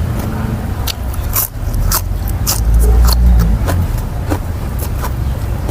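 Close-up chewing and crunching of food, a run of short sharp clicks, over a steady low rumble that swells for about a second around the middle.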